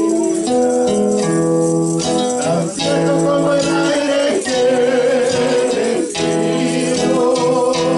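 A man sings a Spanish worship song to his own acoustic guitar accompaniment, holding a long wavering note near the middle. A light jingling percussion keeps the beat under it.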